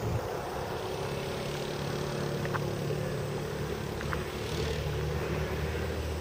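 Yamaha Rhino 660 UTV engine running with a steady low hum. A few brief high chirps come about two and a half and four seconds in.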